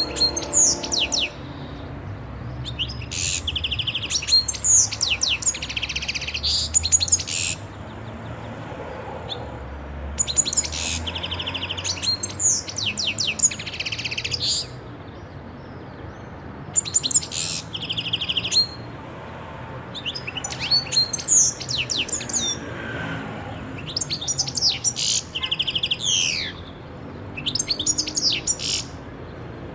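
European goldfinch singing: rapid twittering phrases of quick up-and-down notes and trills, delivered in bursts of a few seconds with short pauses between them.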